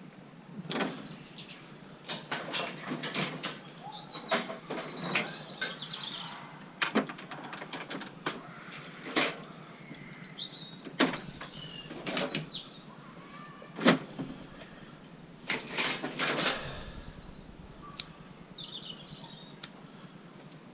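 Irregular knocks and clattering of scrap metal being handled, a dozen or so sharp hits with the loudest about two-thirds of the way through. Birds chirp now and then.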